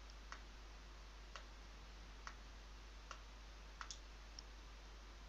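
Computer mouse button clicking: about seven faint, short clicks at irregular spacing over low room tone.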